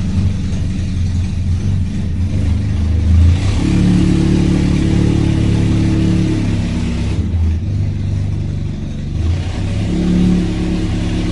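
Off-road jeep engine working hard on a rough, steep dirt track, its note rising about three seconds in, dropping back about halfway, and rising again near the end as it revs and changes gear.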